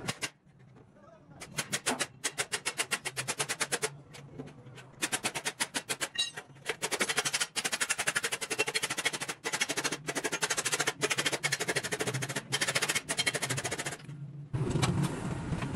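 Body hammer striking thin sheet metal laid over a steel form, in rapid runs of sharp metallic taps: the edge of a replacement rocker panel being folded over by hand. A short run comes about a second and a half in, and a long steady run fills most of the second half.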